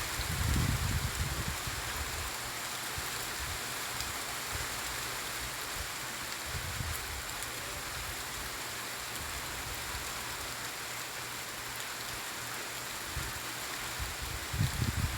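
Steady, gentle rain falling, an even hiss of drops, with a few low rumbles near the start and again near the end.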